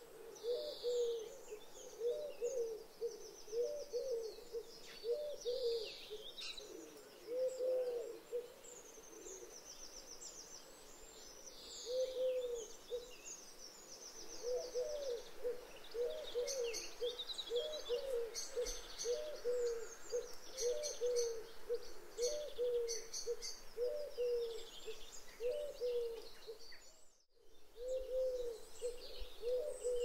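Eurasian collared dove cooing its repeated three-note call in long runs, pausing for a few seconds about a third of the way in and cutting out briefly near the end. Small songbirds chirp and trill faintly higher up behind it.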